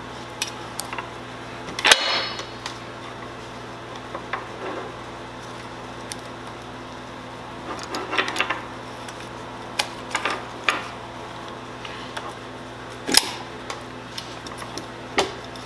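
Metal saw-chain links clinking and knocking against the chainsaw's bar and clutch sprocket as a new chain is worked into place by hand. The clicks are scattered, with the loudest about two seconds in and one sharp knock near thirteen seconds, over a steady low hum.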